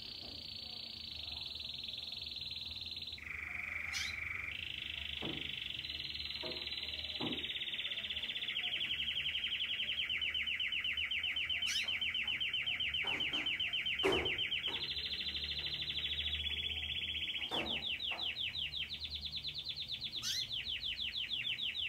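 Young Belgian canary (domestic canary) singing a long continuous song of rolling trills and fast repeated notes, switching to a new phrase every few seconds. A few faint knocks sound under it, one sharper about two-thirds of the way in.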